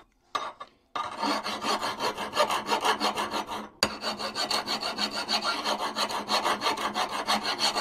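Hand file rasping across the steel edge of a pick mattock blade, filing down nicks and high spots. A run of rapid strokes starts about a second in, pauses briefly near the middle, then carries on.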